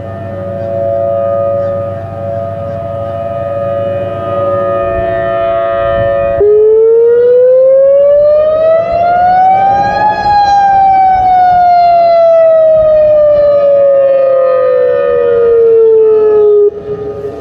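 Several Thunderbolt 1000T mechanical sirens sound steady tones together. About six seconds in, a Federal Signal Modulator MOD5020 electronic siren cuts in much louder: its pitch rises evenly for about three and a half seconds, then falls slowly for about six and a half seconds, and it cuts off abruptly near the end.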